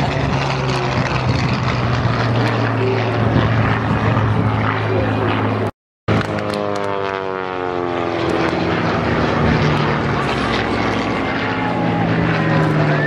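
Propeller-driven aerobatic display aircraft flying overhead, engine running with a steady note. The sound drops out for a moment about six seconds in; after that, the engine note falls in pitch as an aircraft passes.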